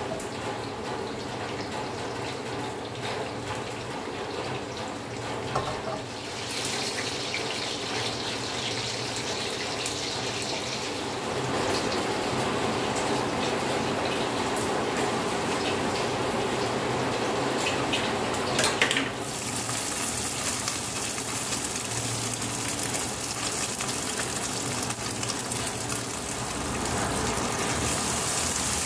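Hot cooking oil sizzling steadily in a wok with pastel pastries frying. About two-thirds of the way through the sizzle gets louder and sharper, and by the end garlic and chili paste are frying in a second wok and being stirred with a wooden spatula.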